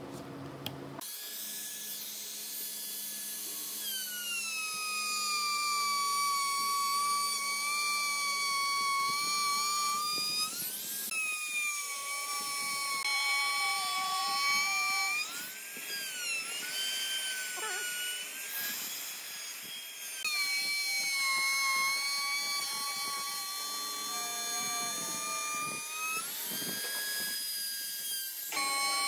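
Makita trim router running at high speed with a high-pitched whine. The whine sags in pitch while the bit cuts grooves into the wood block and climbs back when the cut eases, a couple of times over.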